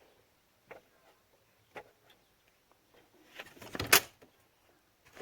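Scattered sharp metallic clicks of hand tools working the belt tensioner bolt, with a louder clattering scrape lasting about a second near the end.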